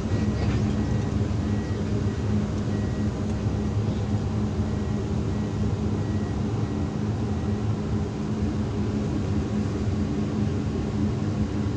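Hydraulic excavator's diesel engine running steadily with a low hum and rumble.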